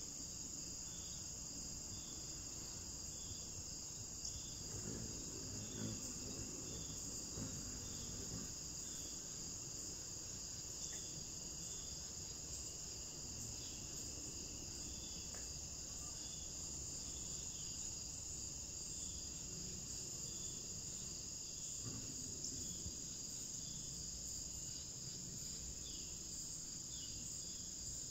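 Crickets calling in a steady, high, continuous chorus, with a lower chirp repeating a little more than once a second.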